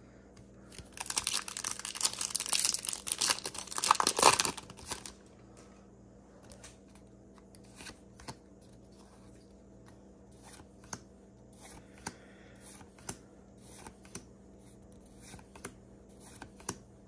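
A foil Pokémon booster pack wrapper crinkling and tearing open for about four seconds, then soft clicks and slides of the trading cards being flipped through one at a time.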